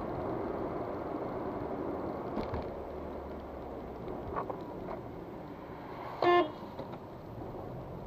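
Steady road and engine noise heard inside a moving car, with a car horn giving one short toot about six seconds in.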